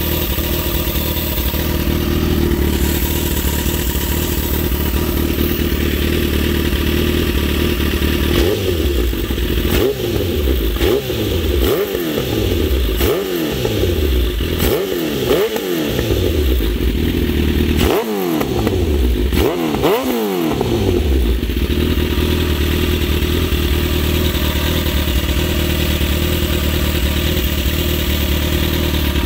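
2008 Suzuki GSX-R1000 inline-four sportbike engine running on newly fitted aftermarket coil packs. It idles steadily, then from about a third of the way in gets a quick series of about ten throttle blips, each rev falling back, before settling to idle again.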